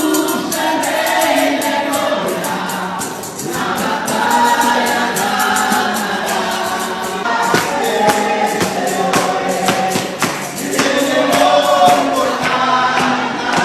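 A group of voices singing a gospel hymn together, with rhythmic hand percussion striking the beat throughout.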